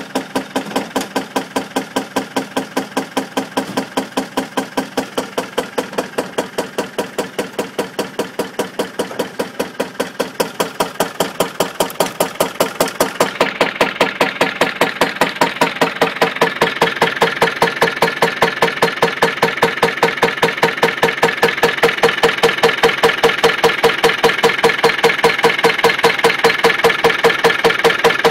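Land Rover Defender 200Tdi 2.5-litre four-cylinder turbo diesel idling with a rapid, regular knock on every beat, which the owner calls a horrible knocking. About halfway through the sound grows brighter and louder.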